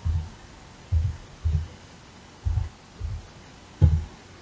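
Keystrokes on a computer keyboard as a word is typed: six short, dull thuds at uneven gaps of about half a second to a second, the last a sharper click.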